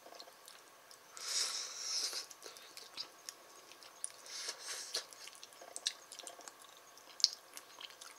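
A person eating mapo tofu: scattered small clicks and mouth sounds, with a breathy hiss about a second in and another shorter one midway.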